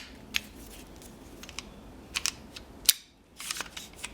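Sharp clicks and taps from handling small pistol parts and tools, a few scattered single clicks and then a quick cluster of them near the end.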